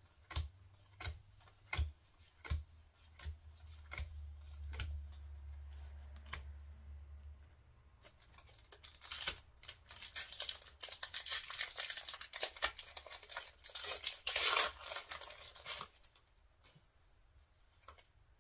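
Pokémon trading cards flipped and set down one after another with sharp taps about twice a second. About eight seconds in, a foil Paradox Rift booster pack wrapper is torn open and crinkled for several seconds.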